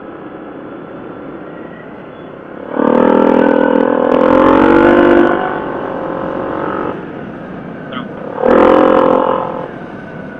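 Yamaha 700 ATV's single-cylinder engine running with a steady drone. Twice it pulls harder under throttle: once for about four seconds starting about three seconds in, and briefly again near the end.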